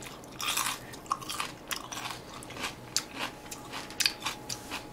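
Crunching and chewing of raw celery: a run of short, sharp, irregular crunches.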